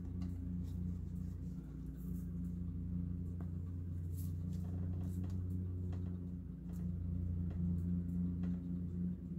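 A steady low hum with faint scattered ticks and rustles as paper is pressed down and a fine-tip glue bottle is handled.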